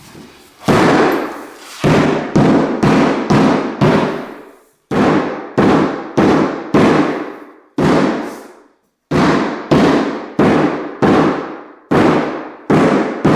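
Repeated hammer blows tapping the last engineered wood floor board of a row into place, about two sharp knocks a second in runs with short pauses, each echoing briefly.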